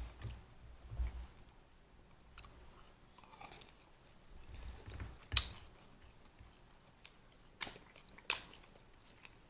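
Person eating seafood boil, chewing and biting quietly, with a handful of short sharp clicks scattered through.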